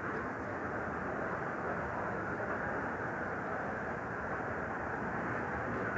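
Steady background rumble of a shopping-mall atrium with its escalators running: an even, unbroken noise with no distinct events.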